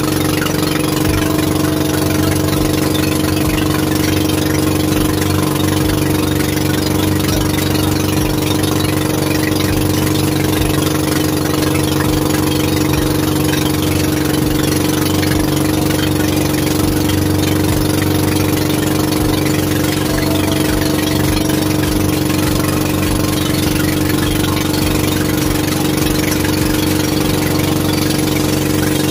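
Fishing boat's engine running steadily at an unchanging speed, with no breaks or changes in pitch.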